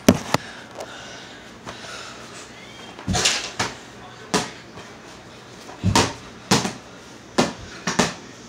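Ball bouncing on a hard indoor floor: about a dozen irregular thumps and knocks, the loudest clustered in the second half.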